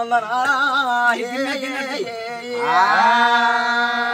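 A man singing a Telugu devotional melody with a wavering vibrato. About two and a half seconds in he glides up into a long held note. A steady drone sounds underneath.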